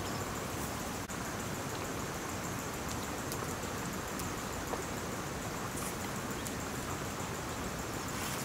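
Steady, even hiss of background noise, with a few faint ticks.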